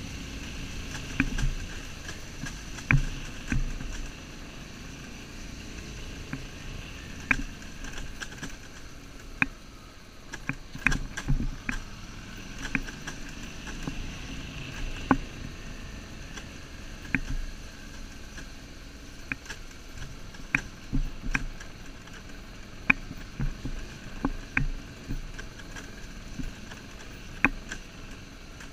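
On-board sound of a motorcycle riding a rough, stony dirt track: a steady rush of wind and running noise broken by frequent sharp knocks and rattles as the bike and its camera mount jolt over stones and ruts.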